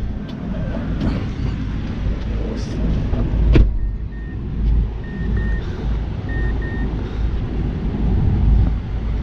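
Low rumble of a shuttle car running, with a sharp click a few seconds in, then three pairs of short high electronic beeps.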